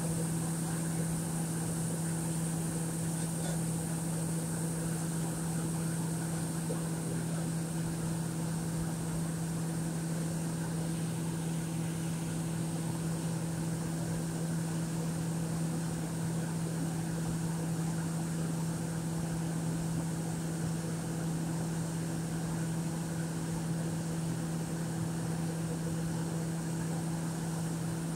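Heavy machinery at an offshore worksite droning steadily: an even low hum with a faint high whine above it.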